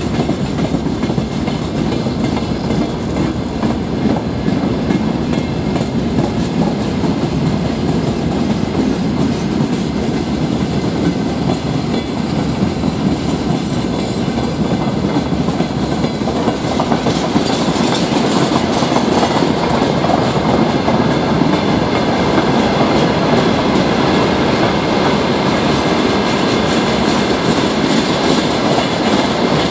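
Freight train of open-top gondola wagons rolling past close by: a steady rumble with the clickety-clack of wheels over rail joints, and a brief brighter hiss a little past the middle.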